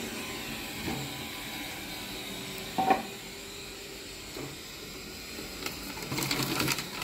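Roborock S6 robot vacuum running steadily on carpet, with one short, sharp sound about three seconds in and a few quick clicks near the end.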